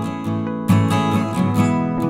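Background music: a strummed guitar playing chords in a steady rhythm.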